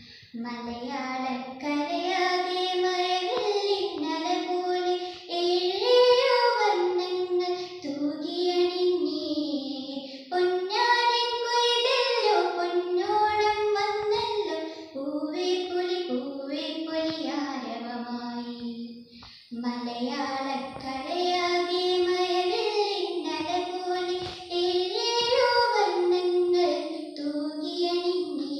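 A girl singing solo and unaccompanied, in phrases of long held notes with short breaks for breath between them.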